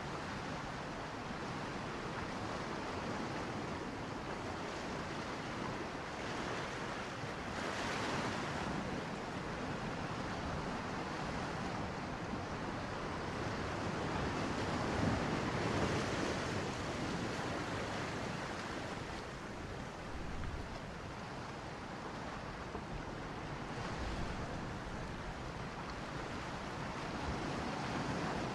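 Steady rushing water noise picked up by a camera held underwater, swelling a couple of times.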